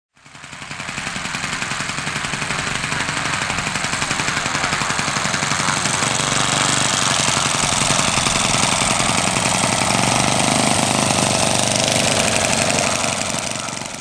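Kolm 65 cc four-stroke petrol engine of a large RC model monoplane running steadily, a rapid even pulsing with propeller noise, fading out near the end.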